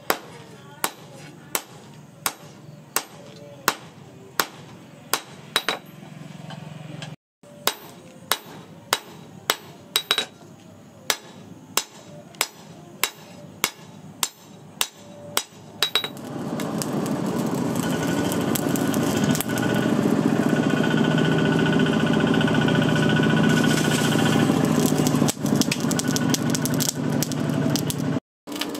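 Hand hammer striking a red-hot chainsaw-bar blank on a makeshift steel anvil, sharp ringing blows about two a second. About halfway through this gives way to a steady rushing roar from the charcoal forge fire.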